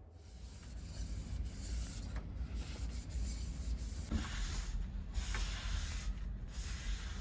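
Rubbing, scraping strokes in long stretches broken by brief pauses, over a steady low hum.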